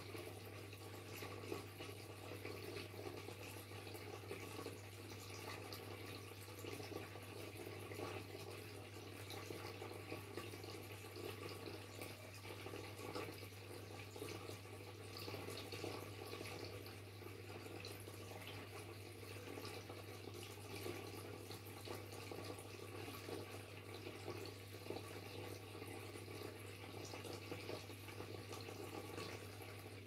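Waterfall: steady rushing and splashing of falling water, full of small droplet splashes, with a steady low hum underneath.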